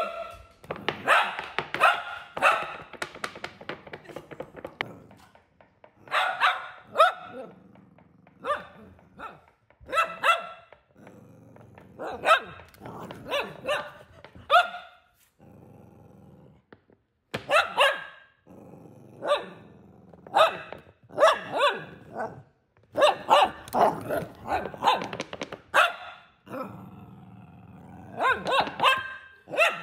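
Cavalier King Charles Spaniel barking in repeated bursts of sharp barks, with lower growling between, excited by a plastic bottle being waved at it in play.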